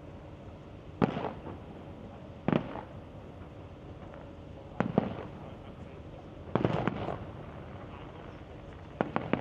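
Fireworks bursting: single sharp bangs every second or two, then a quick cluster of several bangs about two-thirds of the way through, each trailing off in a short echo.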